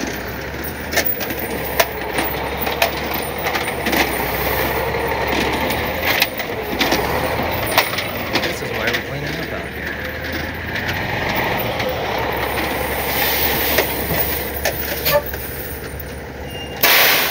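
Loaded flatbed tow truck driving slowly over rough dirt, its diesel engine running steadily while the burned RV frame and tie-down chains on the deck rattle and clank with frequent sharp metal knocks. A brief loud hiss comes near the end.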